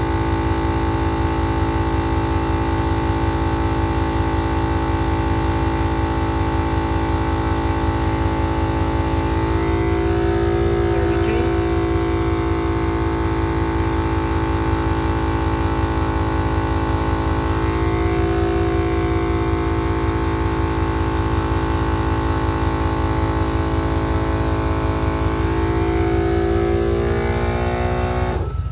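MaxiTrac 300 LPM 12-volt portable air compressor running steadily under load as it inflates a truck tire, its pitch shifting a couple of times. Most of its sound cuts off suddenly near the end, when the tire reaches pressure.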